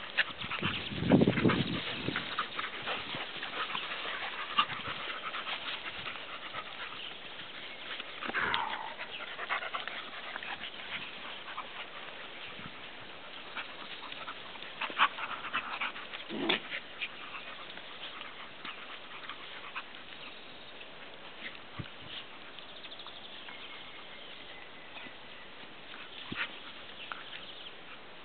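Dogs at play, a large dog with puppies, giving a few short dog vocalisations: a loud low one about a second in, a falling whine about eight seconds in, and another short call about sixteen seconds in.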